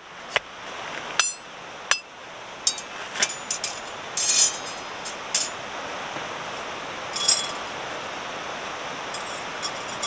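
Metal clinking and ringing as hollow titanium pot-stand bars are handled and set in place. A few sharp, ringing clinks come in the first two seconds, followed by lighter scattered clatter.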